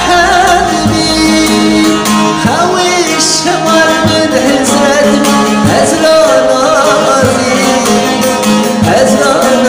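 A song: a singer's ornamented voice over instrumental accompaniment with a steady pulse.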